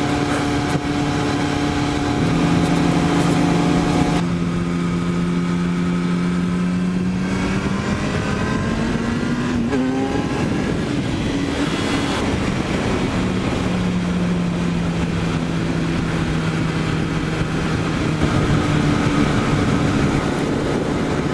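Kawasaki Ninja sportbike engine running at road speed under heavy wind rush. The engine pitch holds steady, climbs for a few seconds as the bike accelerates around the middle, then settles back to a steady cruise.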